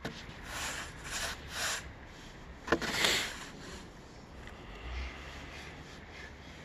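Plastic snow shovel scraping snow across pavement in a few short strokes, with a sharp knock a little under three seconds in followed by the loudest scrape; quieter after that.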